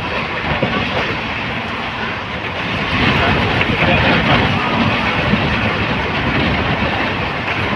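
Passenger train running along the track: wheels clattering over the rails, with steady rumble and rushing air, heard from aboard the train. It grows a little louder about three seconds in.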